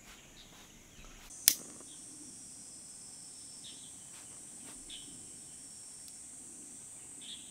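Steady high-pitched drone of summer insects in the open air. A single sharp click comes about one and a half seconds in, and a few short chirps are heard over the drone.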